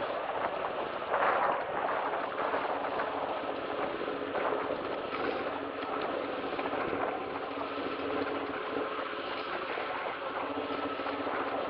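Steady rushing noise of the ground camera moving along a tarmac cycle path, with wind on the microphone and rolling or travel noise, and a brief swell about a second in.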